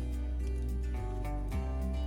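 Background music: a gentle tune with plucked guitar over a steady bass line.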